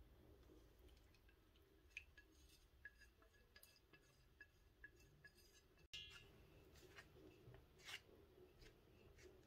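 Near silence, with faint scattered clicks and light rubbing: butter being tipped from a china plate into flour in a stainless steel bowl, then rubbed into the flour by hand.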